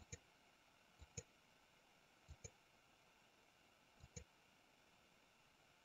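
Faint computer mouse-button clicks: four clicks one to two seconds apart, each a quick double tick of press and release.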